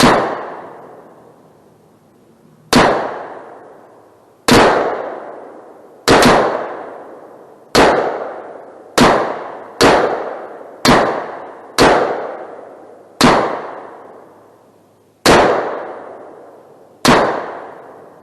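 Rifle shots fired one at a time, about a dozen of them spaced irregularly one to two seconds apart. Each sharp crack dies away in an echoing tail over a second or so.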